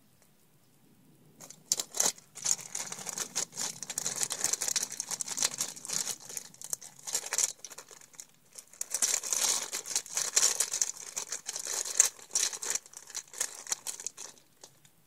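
Rummaging through makeup: plastic crinkling and rustling with many small clicks and knocks of cases and containers being moved about. It starts about a second and a half in and dies away near the end.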